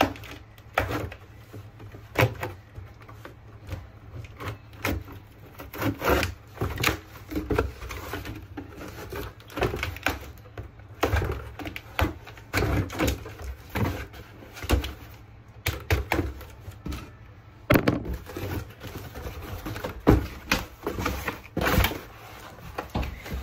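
Cardboard box being broken down by hand: irregular thumps, knocks and scrapes as its flaps are pulled open and the box is folded flat.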